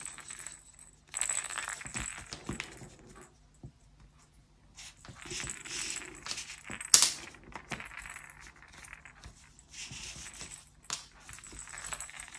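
Rattle insert inside a crocheted toy's head rattling in short irregular spells as the toy is turned and squeezed, with rustling of hands and yarn and a sharp click about seven seconds in.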